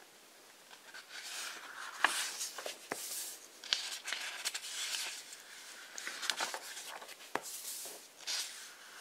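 Pages of a thick hardcover book being turned by hand: paper rustling and sliding in several bursts, with a few sharp paper snaps as pages flip over. It starts about a second in and dies down near the end.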